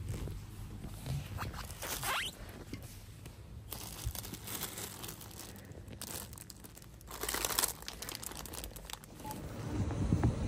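Crinkling of a thin plastic bag of green peppers being handled, coming in short bursts over a steady low hum.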